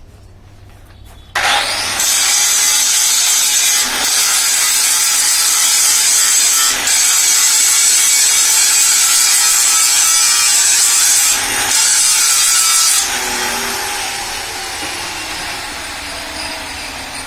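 Power tool grinding or cutting metal, starting abruptly about a second in, loud and steady with three brief dips, then easing off over the last few seconds.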